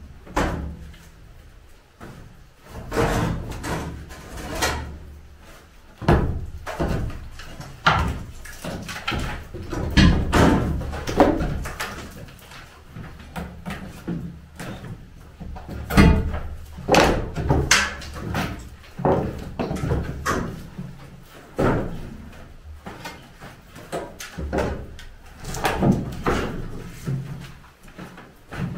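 Timber formwork being stripped from a cast concrete slab with a long steel pry bar: irregular knocks and bangs of metal striking and levering wooden boards, several strikes every few seconds, some much louder than others.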